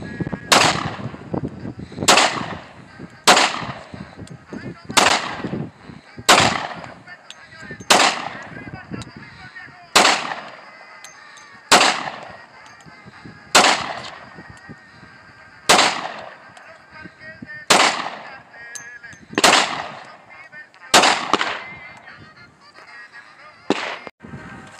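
Handgun firing slow, single aimed shots, about fourteen in all, spaced every one and a half to two seconds. Each shot trails off in a short echo.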